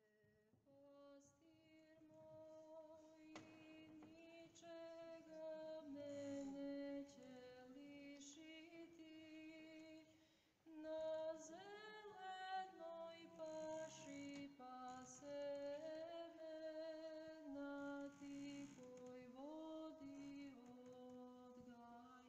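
A woman's voice singing a slow, unaccompanied melody, faint, with long held notes that step and glide between pitches; it pauses briefly about halfway through.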